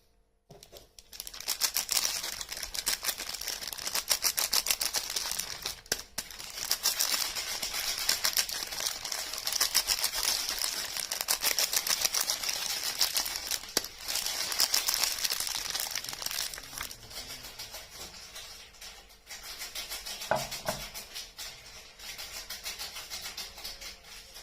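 Soap packaging crinkling and tearing as soap bars are unwrapped by hand: a dense, rapid run of fine crackles that eases off near the end.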